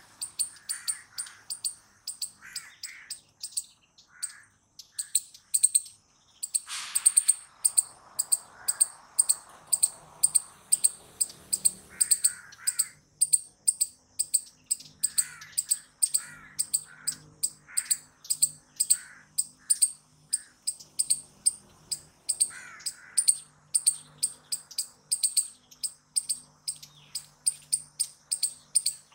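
Palm squirrel chirping: a long, unbroken series of sharp, high-pitched chip calls, about two or three a second. A louder harsh sound comes about seven seconds in.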